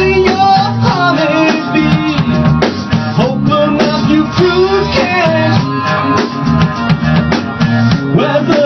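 Rock band playing a song: a steady drum-kit beat, guitar, and a singing voice.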